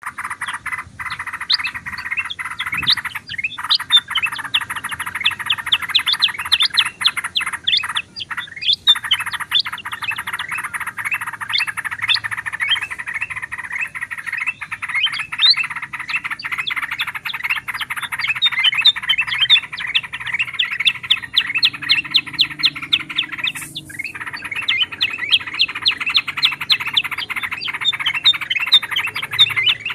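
A dense chorus of bulbuls chattering, with many rapid, overlapping chirps, and a brief break about 24 seconds in.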